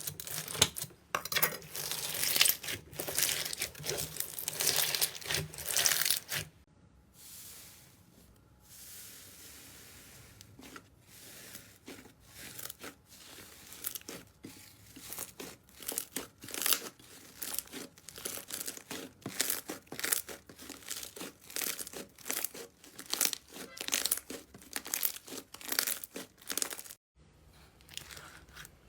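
Slime being squeezed and stretched by hand, making dense runs of quick crackles and clicks. The crackling is loud for the first six seconds, much softer for a few seconds after, then picks up again until a sudden break near the end.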